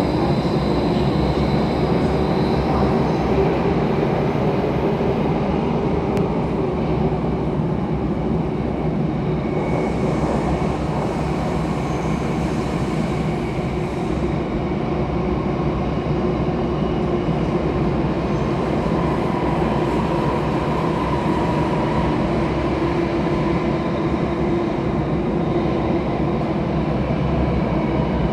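Bombardier C951 metro train running through a tunnel, heard from inside the carriage: a steady rumble of wheels on rail, with a faint steady whine on top.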